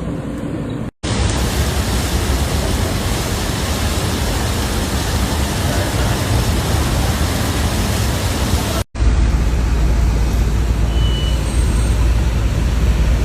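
Steady, loud hiss of heavy rain and rushing floodwater, in two clips joined by abrupt cuts; the second clip has a heavy low rumble under the hiss.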